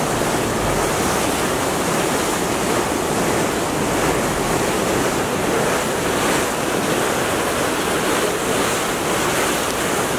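Steady, even rush of water in a large irrigation canal, with wind on the microphone.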